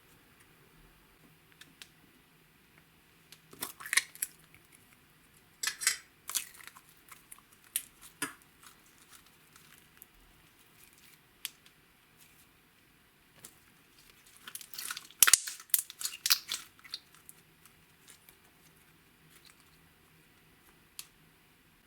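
Slime being pressed, stretched and mixed by hand, giving clusters of sticky crackling pops and clicks with quiet stretches between; the busiest clusters come about 4, 6 and 15 to 16 seconds in.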